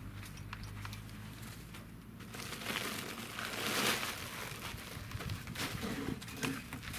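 A plastic sack of soil crinkling and rustling as it is handled, swelling to its loudest about four seconds in, with a few light clicks around it.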